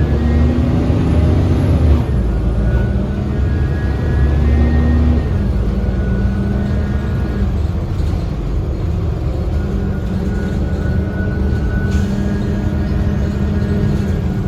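2010 Gillig BRT transit bus's Cummins ISL inline-six diesel running under way, heard from inside the bus: a steady drone that shifts in pitch about two seconds in and again about five seconds in, with a faint high whine above it.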